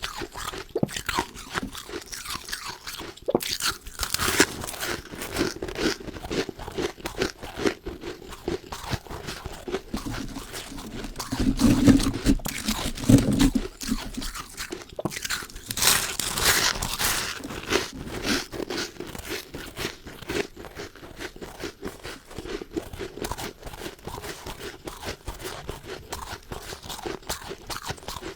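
A person biting and chewing powdery freezer frost close to the microphone: a continuous run of crisp crunches, with a few heavier, deeper bites about halfway through.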